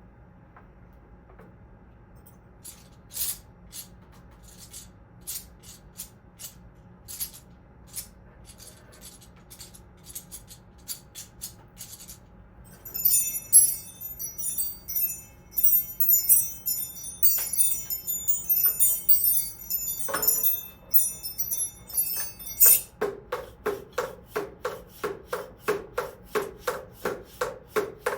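Live sound effects played on hand percussion and everyday objects: scattered light taps and clicks, then about ten seconds of high, glittering chime-like tinkling, then a steady rhythmic scraping of about three strokes a second.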